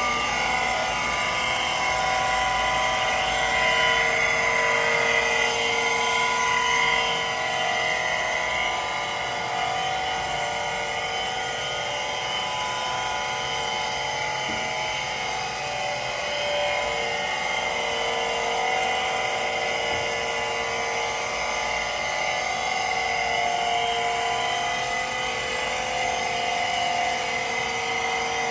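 Harig 618 surface grinder's spindle motor running steadily with the grinding wheel spinning: a steady whine made of several held tones.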